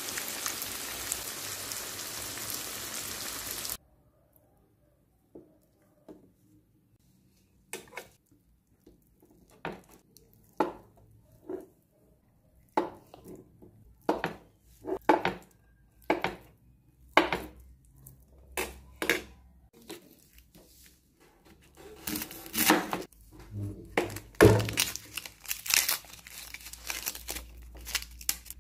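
Oil sizzling steadily under cubed tofu and sliced red onion in a frying pan, cutting off suddenly after a few seconds. After a pause come separate taps of a knife cutting through a block of tofu onto a cutting board, about one a second. Near the end there is denser crinkling and tearing as the papery skin is peeled off a red onion.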